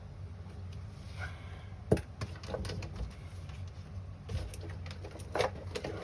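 Light clicks and taps, loudest about two seconds in and clustering again near the end, over a steady low hum.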